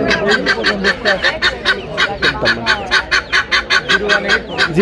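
Helmeted guineafowl calling: a fast, harsh rattle of sharp notes, about six a second, kept up without a break.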